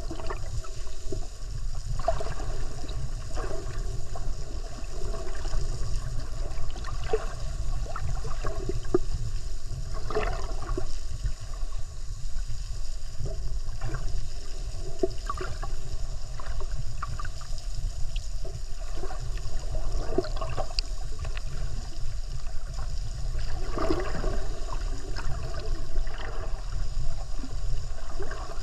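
Underwater water noise on the camera's microphone: a steady low rumble of moving water with irregular gurgles and small crackles.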